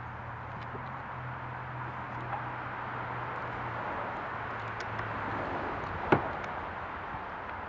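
Sharp plastic click from a Scotty rod holder's parts being fitted together about six seconds in, with a few fainter ticks of handling. Under it, a steady background hiss and a low hum that fades out shortly before the click.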